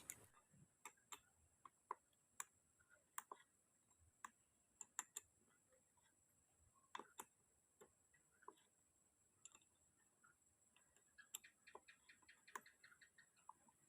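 Near silence broken by faint, irregular clicks and light taps, with a quick run of clicks near the end.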